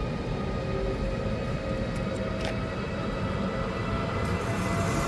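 Siemens EU44 (Taurus) electric locomotive hauling a passenger train into the station. It gives a steady electrical whine over a rumble, and it grows louder near the end as the train draws near.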